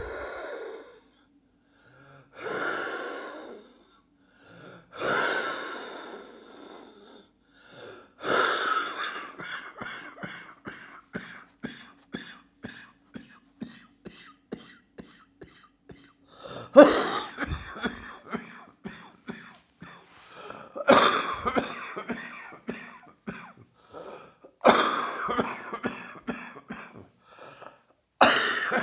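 A person with a heavy chest cold coughing and wheezing. It opens with a few long breaths, then a run of short, quick coughs. From about halfway there are fits that each start with a loud cough and trail into smaller ones, about every four seconds.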